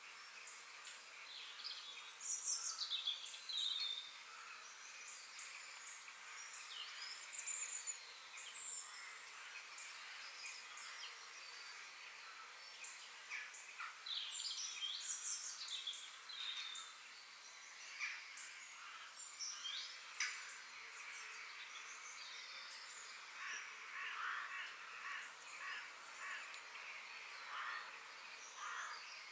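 Several wild birds calling and chirping in quick, overlapping phrases, some sliding down in pitch, over a steady high background hiss.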